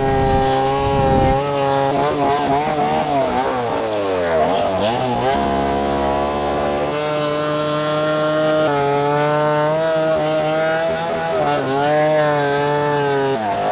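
Chainsaw engine running, revving up and down several times with steady stretches in between, its pitch falling away near the end.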